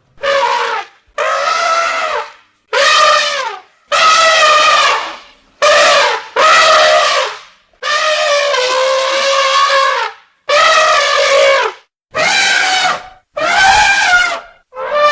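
Elephant trumpeting: a rapid series of about ten brassy, loud calls, each lasting one to two seconds, with short breaks between them.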